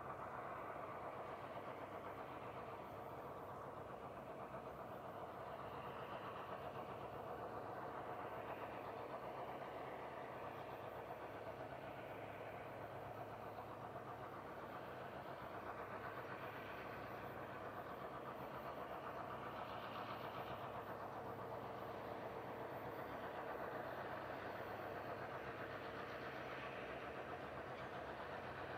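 Diesel-electric locomotives GWA 2207 and streamliner GM37 hauling a rail train at low speed as it approaches, their engines giving a steady drone that holds level.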